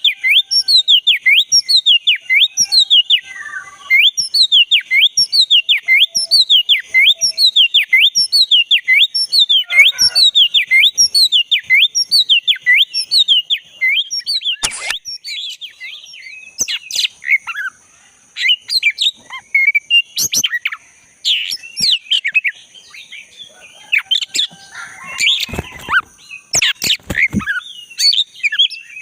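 Oriental magpie-robin (black-breasted kacer) singing loudly. It first repeats a falling whistle about one and a half times a second, then breaks into a more varied song of mixed whistles and sharp notes, with a few loud sharp strokes near the end.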